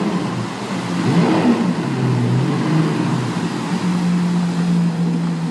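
An engine running, its pitch rising and falling, then holding steady near the end, over a steady hiss.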